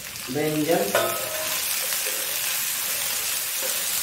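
Chopped eggplant tipped into a pan of hot oil, setting off a sizzle that jumps up about a second in and then holds steady.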